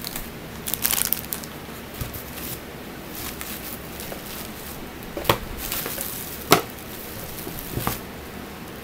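A subscription box and its packaging being handled and opened: rustling and crinkling, with three sharp clicks or taps in the second half.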